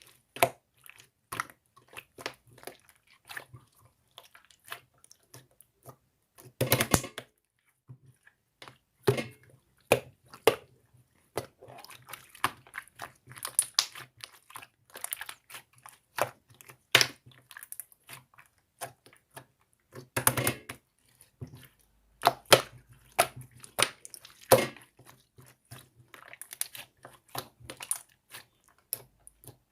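Crunching and crinkling close to the microphone: dozens of short crisp cracks in irregular clusters, with brief quiet gaps between and denser bursts about a quarter and two-thirds of the way through.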